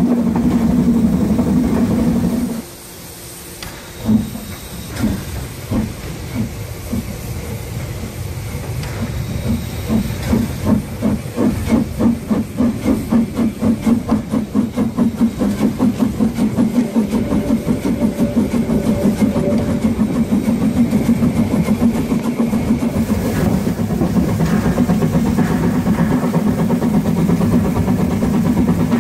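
Narrow-gauge steam locomotive 99 7245 working hard. A steady loud running noise breaks off about two and a half seconds in. Slow single exhaust chuffs with steam hiss follow, quickening into a rapid, even beat as the locomotive pulls away and gathers speed. Near the end a steady loud running noise returns.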